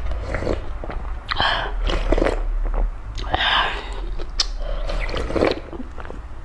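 Close-miked noodle eating: two long slurps of noodles, about a second in and again about three seconds in, with wet chewing and small clicks between.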